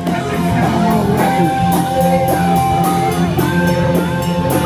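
Rock band playing live, with drums keeping a steady cymbal beat under electric guitar and held notes.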